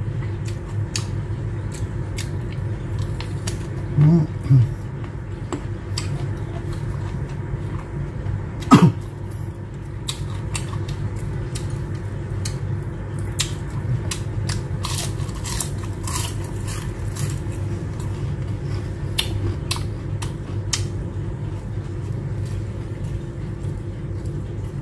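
Close-up eating sounds: crunchy bites and chewing of fried shrimp tempura and a long green chili, with many short wet mouth clicks over a steady low hum. Two short voiced sounds about four seconds in, and a louder, brief sound falling in pitch about nine seconds in.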